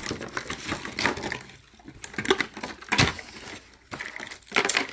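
Irregular rustles, clicks and knocks of a new plastic toy and its packaging being handled and unwrapped.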